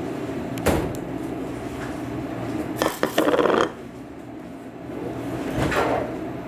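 Dishes and cupboard clattering as crockery is handled from a kitchen cabinet: a sharp knock about a second in, a louder rattling clatter around three seconds in, and another clatter near the end, over a steady background hum.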